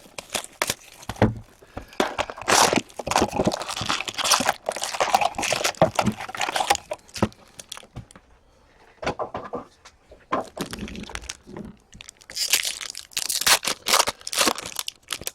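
Foil trading-card pack wrappers being torn open and crinkled by hand, with irregular rustling and sharp crackles. A louder burst of crinkling comes near the end.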